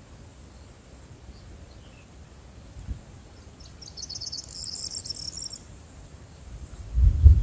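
Insect trilling: a rapid, pulsed, high-pitched chirping in the middle for about two seconds, over a faint outdoor hiss. A brief low thump comes about three seconds in, and a louder low rumbling thump near the end is the loudest sound.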